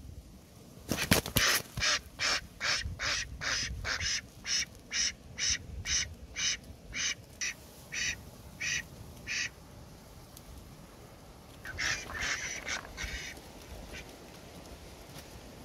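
Domestic ducks quacking: a long run of short quacks, about two a second and slowing toward the end, then a brief quick cluster of quacks a few seconds later.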